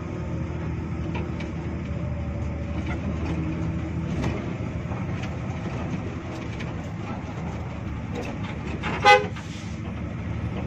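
Hino RG1JSKA bus's diesel engine running with road noise in the cabin and small rattles. A single short, loud horn toot comes about nine seconds in.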